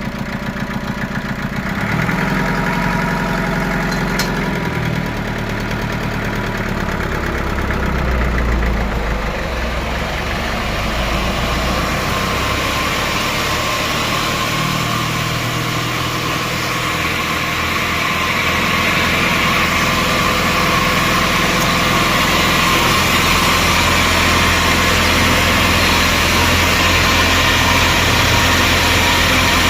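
An engine running steadily, with a harsher, rougher noise building up about twelve seconds in and staying.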